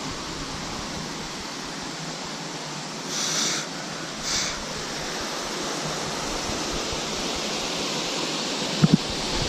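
Steady rushing of a waterfall. Two short hissy swells a few seconds in, and two quick sharp knocks near the end.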